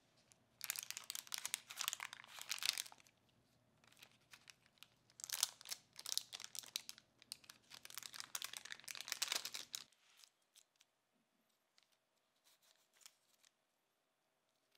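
Parchment paper crinkling and rustling as it is handled, in two stretches of a couple of seconds each, then a few faint soft ticks.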